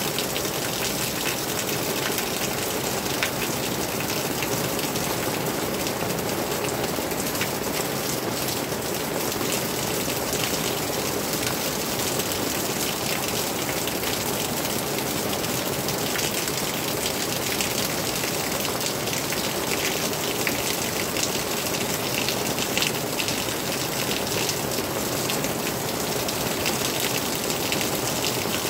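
Steady rain: an even hiss with many single drops ticking close by, unchanging throughout.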